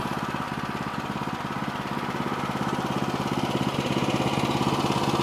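Sawmill engine idling steadily with a fast, even putter.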